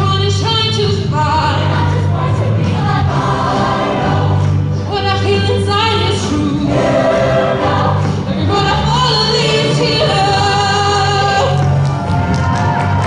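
Women's show choir singing in several voices over band accompaniment with a steady bass line underneath.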